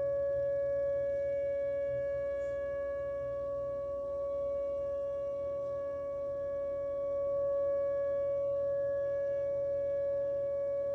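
Whelen WPS 2909 electronic outdoor warning siren sounding a steady tone of constant pitch, the usual alert signal. Its loudness swells slightly about two-thirds of the way in.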